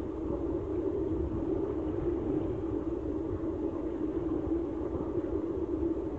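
Muffled, steady low rumble of pool water moving against a camera in a waterproof housing held at the water's surface.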